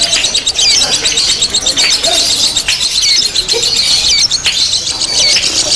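Many lovebirds chirping and trilling at once in rapid, high-pitched, overlapping runs: the constant din of birds in the hanging line at a lovebird singing contest.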